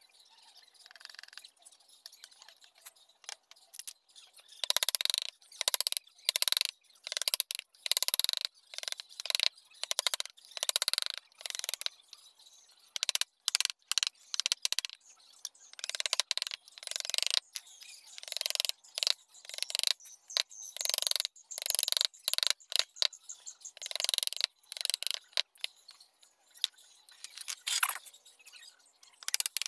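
Carving chisel and gouge pushed by hand through wood, a run of short scraping cuts at one or two a second that starts about four seconds in.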